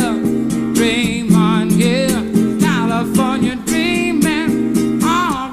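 Acoustic guitar played live, with a man singing a wordless, wavering vocal line with vibrato over it.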